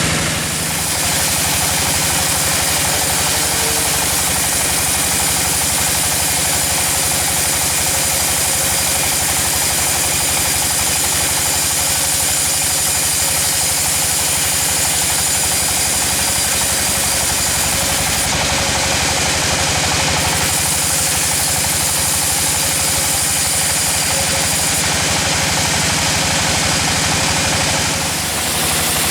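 Engine of a wood sawmill running steadily, with a brief dip in level about a second in and again near the end.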